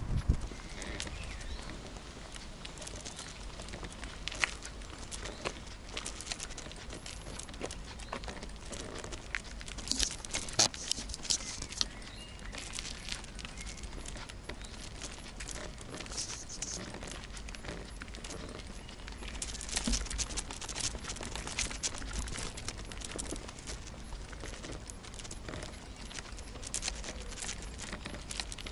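A bicycle ride heard from inside a wicker bike basket with a wire cage lid: irregular clicks and rattles from the basket over a steady low rumble, with louder spells of rattling about ten seconds in and again around twenty seconds in.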